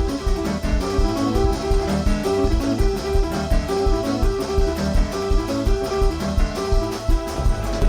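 Instrumental music with a steady beat and repeated short melodic notes, keyboard and guitar-like in sound, with no singing.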